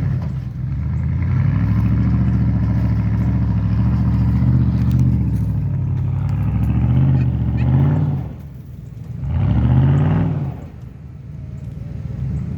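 Stock Ford F-150 pickup's engine revving hard under load as it climbs a steep dirt hill, its pitch wavering up and down. About eight seconds in it drops off, surges once more, then falls back to a lower, quieter run near the end.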